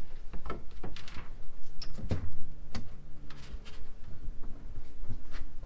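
Electrical cable being handled and pulled into a breaker panel: repeated rustling, scraping and light knocks of wire against the panel box, in short irregular strokes.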